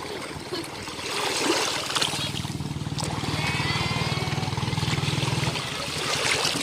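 Sea waves washing and splashing on a beach, with a low, steady motor hum that grows louder about two seconds in.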